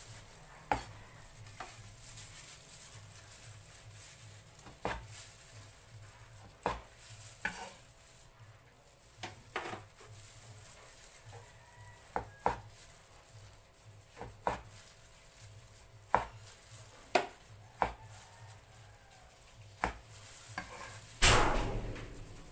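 Large kitchen knife slicing tender roast beef on a wooden cutting board: irregular sharp taps of the blade striking the board, one to two seconds apart. Near the end there is a longer, louder scrape as the blade pushes the slices across the board.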